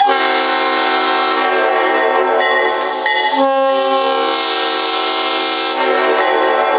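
Leslie RS5T five-chime locomotive air horn, freshly restored, sounding its full chord in long steady blasts. About three and a half seconds in, the chord breaks briefly to a single note before the full chord comes back.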